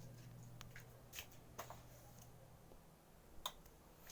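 Near silence: a low steady hum with a handful of faint, scattered clicks, the clearest one near the end.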